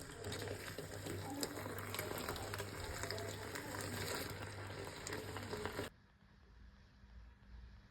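Food frying in a pan, a steady sizzle with small crackles, cutting off suddenly about six seconds in.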